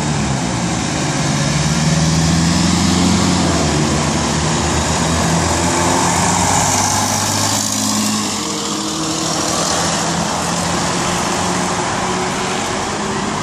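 Road traffic passing close by, including a double-decker bus. A low engine hum runs under tyre and road noise and fades about eight seconds in, leaving steady road noise.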